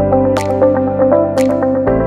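Background electronic music: short plucked notes over held bass notes, with a sharp percussive hit about once a second and the bass note changing near the end.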